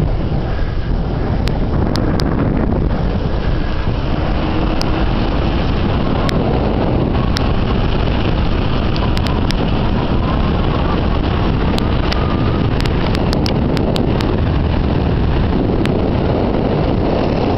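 Wind buffeting the camera's microphone while riding a bicycle: a loud, steady rumble, with scattered sharp clicks.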